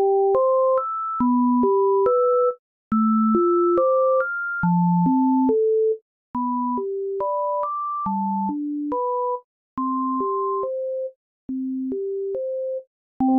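Simple synthesizer melody of pure, sine-like tones, two notes at a time, about two notes a second, with a faint click at the start of each note. The notes stop dead with no reverb tail: the dry signal, heard up close, before any reverb is added. It plays in short phrases separated by brief silences.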